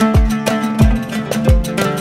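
Background music: plucked guitar-like notes over a deep bass beat that drops in pitch, three beats about two-thirds of a second apart.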